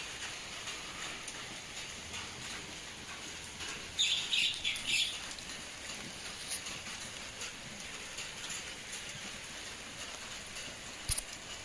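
A few short, high bird chirps about four to five seconds in, over a steady outdoor hiss, with a single sharp click near the end.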